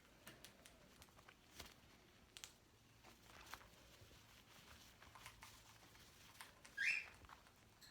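Faint rustling and light scratching of sweatshirt fabric as a sun conure clambers into a hood. There is one short, high squeak about seven seconds in.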